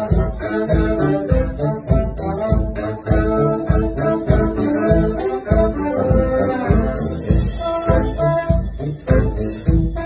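Live band with a horn section of trombone and saxophones playing a tune together over a steady low beat.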